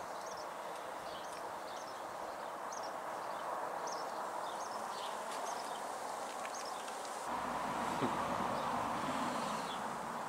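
Small birds chirping: short, high calls scattered through a steady outdoor background. About seven seconds in, a low rumble joins in.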